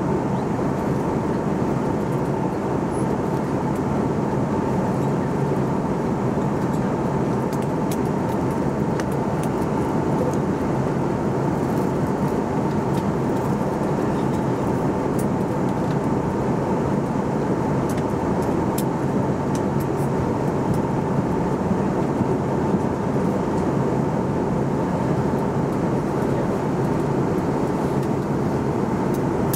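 Steady in-flight cabin noise of an Airbus A320neo: rushing airflow and engine drone, with a thin steady hum-like tone running through it.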